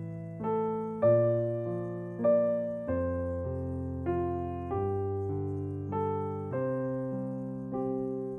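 Background piano music: slow chords and melody notes struck about once a second, each ringing and fading before the next.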